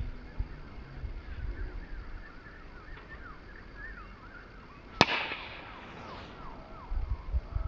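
Golf driver striking a ball off the tee: one sharp crack about five seconds in, with a brief ring after it.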